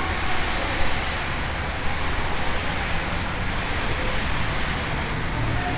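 Steady road traffic noise, a continuous rumble and hiss with no single vehicle standing out.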